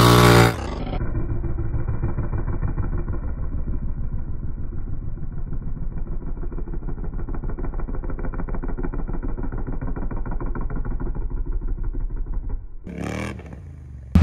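ATV engine running under throttle as the quad spins in the dirt, heard muffled with a fast, even pulsing. It drops away near the end.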